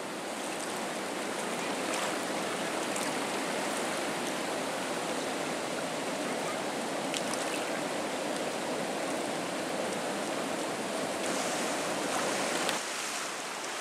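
Swollen flood water of the Nysa Kłodzka rushing over a river weir and churning downstream: a steady white-water rush. The sound shifts briefly near the end.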